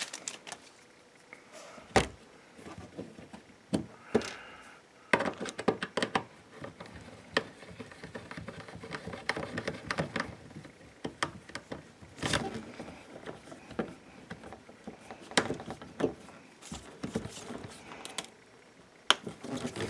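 Scattered clicks and taps with soft rubbing in between: handling noise from hands working at the roof-mounted antenna base, threading the antenna mast back on.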